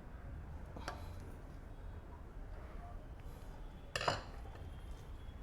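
Small metal clicks from hands fitting a spring clip back onto an overlock machine's part: a light click about a second in and a louder click about four seconds in.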